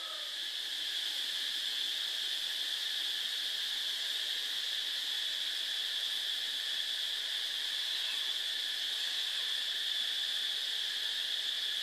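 A steady high-pitched drone that holds one even pitch.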